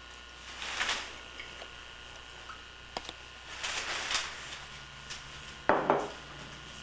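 Kitchen handling sounds from pie-making at the counter: two soft rustles, a small tap, and a louder knock near the end.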